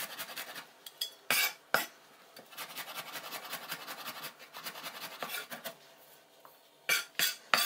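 Chef's knife chopping garlic on a wooden cutting board: runs of quick, light chopping strokes, with a few louder, sharper knocks about a second in and near the end.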